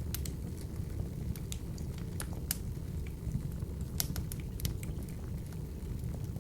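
Wood fire burning in an open fireplace: a steady low rumble of flame with irregular sharp crackles and pops, several a second.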